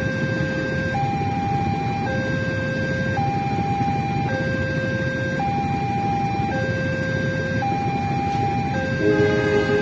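Railway level-crossing warning alarm sounding, alternating between a lower and a higher tone, each held about a second, over a steady low rumble. Near the end, a louder pitched sound with several tones briefly joins in.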